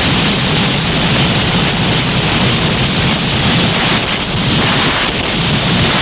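Loud, steady wall of rushing noise with a low rumble underneath, part of a noise-music collage.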